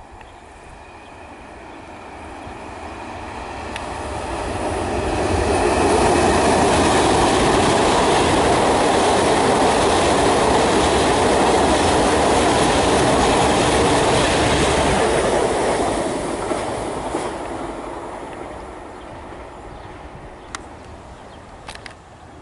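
Electric regional passenger train crossing a concrete railway viaduct. It builds over about four seconds, runs loud and steady for about ten seconds as the coaches pass, then fades away.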